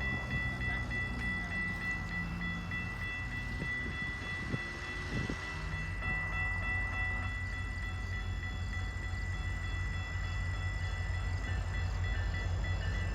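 Level crossing's electronic bell ringing steadily, with the low rumble of an approaching MP40 diesel locomotive that grows stronger from about halfway through.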